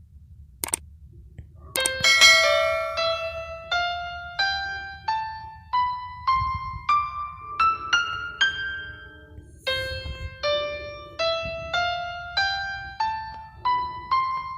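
Phone dial pad touch tones set to piano keys: single piano notes sound one at a time as digits are tapped, about one every half second, each a step higher than the last in two rising runs, the second starting about ten seconds in. A couple of short taps come just before the first note.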